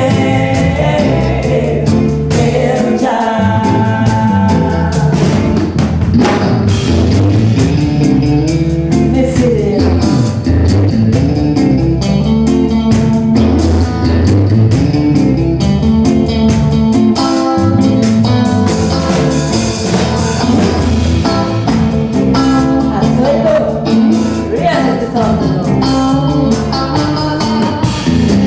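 Live band playing a ragga song, with singing over guitar and drums.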